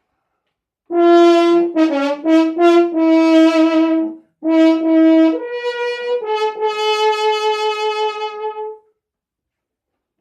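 A valved brass horn plays a short solo phrase: a held note, a quick run of short notes and a brief breath, then two rising steps to a long final note held with a slight waver.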